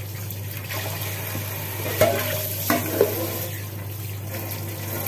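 Kitchen tap running onto a whole fish being rinsed in the sink, the water splashing off it as it is turned by hand. A few sharp knocks come about two to three seconds in.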